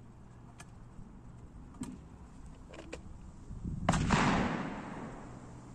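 A single gunshot about four seconds in: a sharp crack followed by about a second of echoing decay. A few light clicks come before it.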